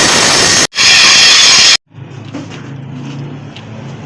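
Stick-welding arc crackling loudly on pipe, breaking off briefly about 0.7 s in and restarting, then stopping abruptly at about 1.8 s. A much quieter steady low hum follows.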